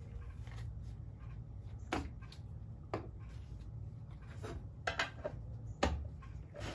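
A handful of short, sharp clicks and taps as steel pliers are handled and the lid of a paste wax tin is pressed back on, over a low steady hum.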